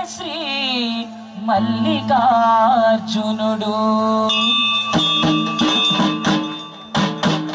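Folk dance music: a sung melody with a wavering vibrato over a steady drone, giving way about five seconds in to a rhythmic instrumental passage with a sharp percussive beat.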